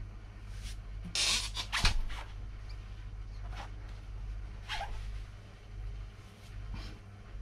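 Brief rustles and a sharp knock as things are handled by hand: a rustle about a second in, the loudest knock just before two seconds in, and a few softer rustles later, over a steady low hum.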